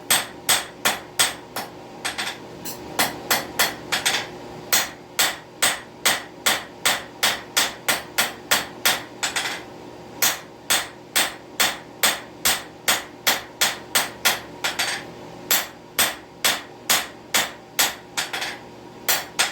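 Hand hammer striking a railroad spike on an anvil, a steady run of ringing blows about three a second with brief pauses between runs, as the spike's tip is forged and refined.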